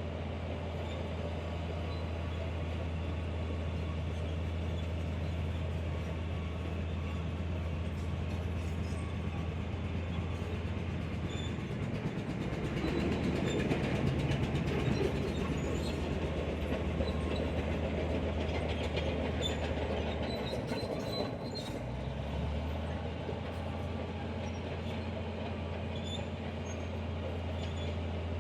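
Heavy diesel earthmoving machinery running steadily, with a deep engine drone that grows louder about halfway through, then shifts in pitch a little later.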